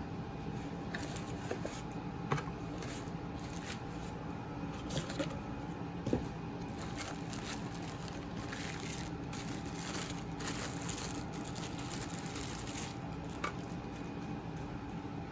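Packaging being handled while a product is unboxed: on-and-off rustling and scraping, with a few light knocks, over a steady background hum.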